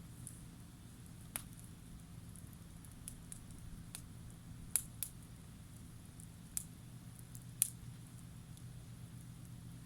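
Wood campfire crackling faintly, with irregular sharp pops of burning firewood, a few louder ones around the middle, over a low steady hum.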